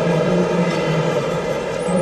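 Small electric motor of a radio-controlled construction model whining steadily, its pitch stepping slightly up and down as the load changes.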